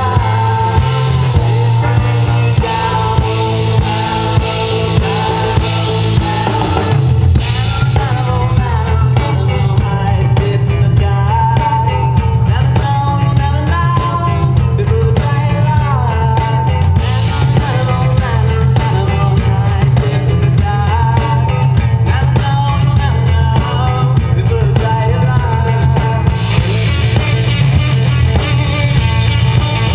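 Live band music played over a festival sound system: a steady drum beat and heavy bass under a singing voice, with cymbals brightening the sound near the end.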